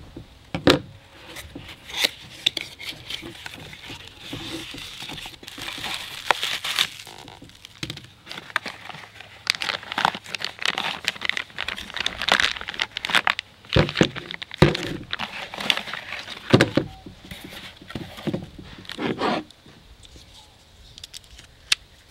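Unboxing handling: a cardboard box's flaps pulled open and plastic bags and packing paper crinkling and rustling as ratchets are taken out, with a few sharp thuds around the middle. The rustling quietens near the end.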